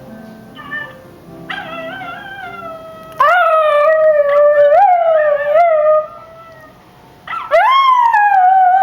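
Miniature schnauzer howling: a long howl with a wavering pitch that turns loud about three seconds in, then a second howl near the end that rises and then slowly falls.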